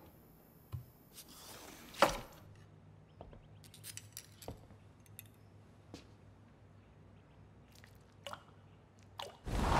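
Small clicks, taps and glass clinks against a quiet room, with one sharp knock about two seconds in. A car engine comes up just before the end.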